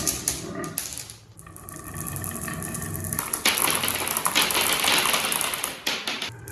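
Glass marbles clattering and rolling down a wooden and bamboo track in quick runs of clicks. The sound thins out about a second in, then a denser rushing rattle starts about three and a half seconds in.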